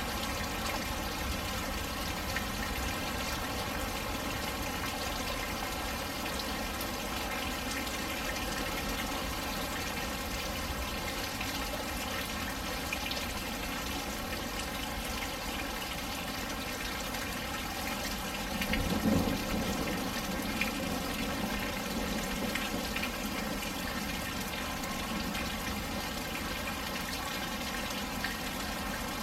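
Steady rain pouring down, with water running and splashing. A low rumble swells about two-thirds of the way through and lasts a few seconds.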